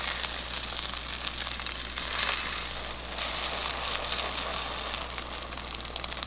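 An omelet sizzling in oil in a frying pan over a gas burner as the pan is tilted and swirled. The steady hiss swells briefly about two seconds in.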